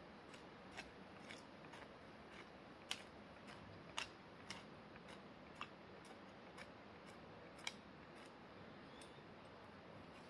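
Faint, sharp clicks or taps at irregular intervals, about one every half second at first, then sparser, stopping a little before the end.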